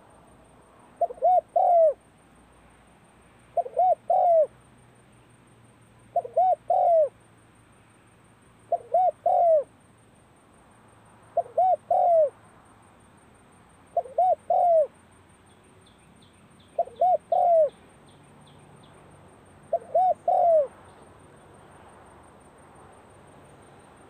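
Spotted dove cooing: eight three-note phrases, two short notes and a longer last one, repeated about every two and a half seconds, the last a few seconds before the end.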